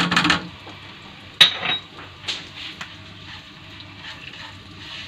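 A spatula and bowl knocking and scraping on a nonstick frying pan while spices are tipped into frying garlic and stirred in. There is one sharp clink with a short ring about a second and a half in, then a few softer scrapes.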